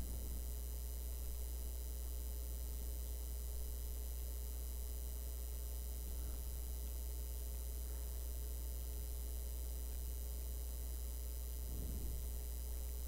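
Steady low electrical hum with faint hiss, the recording's background noise, and no other sound.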